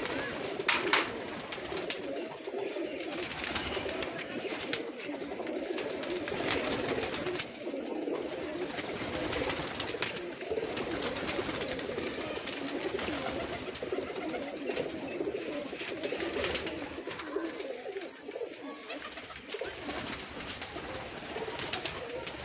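A flock of caged pigeons cooing continuously, many birds overlapping, with frequent sharp taps and clicks throughout.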